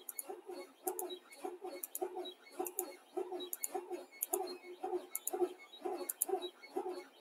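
Computer mouse clicking about once a second, each click selecting another spreadsheet cell, over a faint, quicker repeating ticking.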